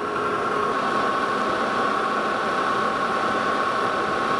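Metal lathe running steadily with a high, even whine, its spinning workpiece being center-drilled from a drill chuck in the tailstock to start the hole before drilling out the inside.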